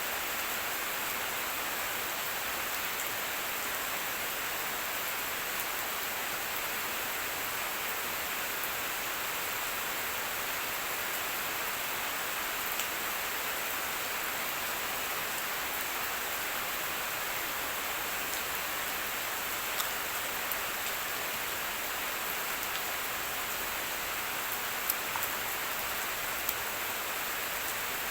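Steady rain falling, an even hiss with a few sharper single drop ticks, most noticeably near the end.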